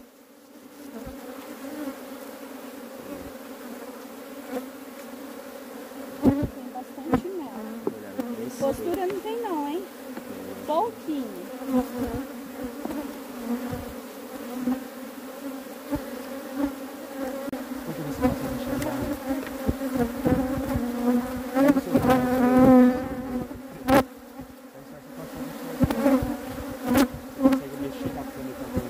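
Many honey bees buzzing around an opened hive: a steady, loud hum that swells and wavers in pitch about two-thirds of the way through. Scattered short clicks and knocks sound under it.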